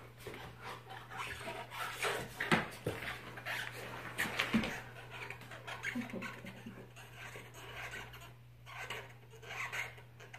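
Bernese mountain dog mouthing and pushing a big red rubber ball across a wooden floor: irregular rubbing and scraping of teeth and jaws on the ball, with a few sharp knocks about two and a half to four and a half seconds in.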